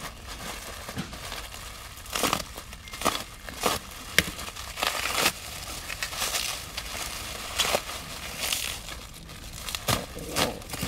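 Plastic bubble wrap crinkling and rustling in irregular bursts as a taped package is pulled open by hand, with a sharp snap about four seconds in.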